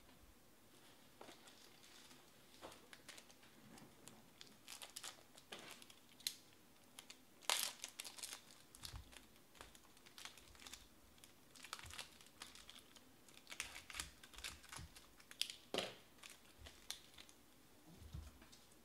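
Plastic wrapping of trading card packs crinkling and tearing as packs are opened, in irregular crackles and clicks. The loudest tears come about halfway through and again near the end.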